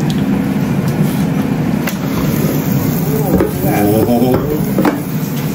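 Ninja dual-zone air fryer running with a steady fan hum, with sharp clicks about two seconds in and near the end as a basket drawer is pulled open.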